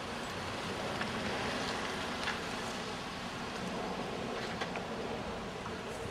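Steady outdoor background noise of a residential street, a hiss of distant traffic and wind, with a few faint ticks.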